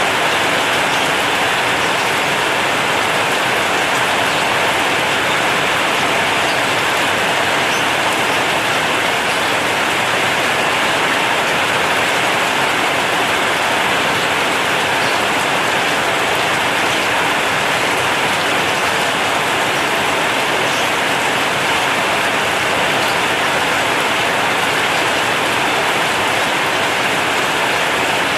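Heavy rain drumming steadily on a corrugated zinc sheet roof, a dense even hiss of drops with no let-up.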